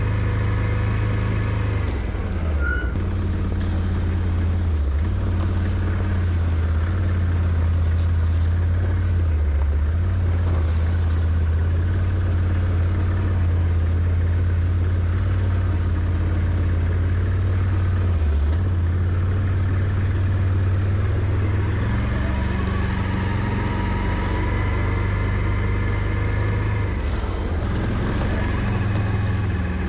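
Can-Am Outlander 650 ATV's V-twin engine running steadily, with its pitch and level holding nearly constant and a few brief dips.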